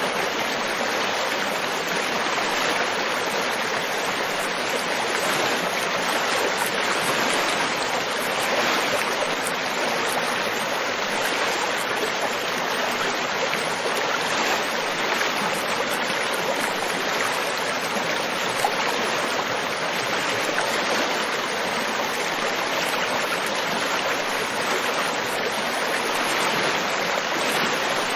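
River water flowing and rushing over stones, a steady even babble.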